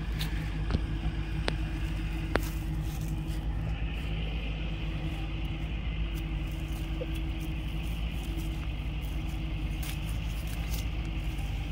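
An engine idling steadily, a constant low hum. A few sharp clicks sound over it in the first couple of seconds.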